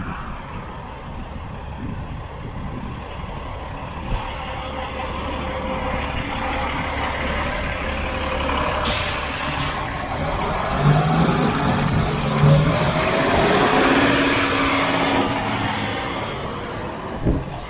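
Heavy road vehicle on a city street, engine running and rising in pitch as it pulls away, over steady traffic noise, with two short bursts of air-brake hiss about four and nine seconds in.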